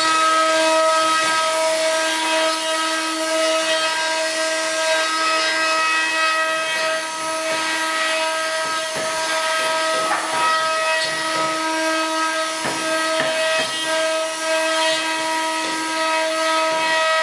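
Eight-spindle CNC router with rotary axes carving wooden spindles: a steady high whine of the spindle motors, several pitches held together, over the hiss of the bits cutting wood, with short louder cutting noises now and then in the second half.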